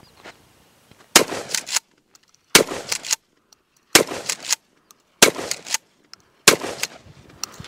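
Five shots from a short-barreled 12-gauge pump-action shotgun, a Dominion Arms Grizzly with a 12.5-inch barrel, fired about 1.3 seconds apart. Each shot is followed by a short clatter of the pump being worked.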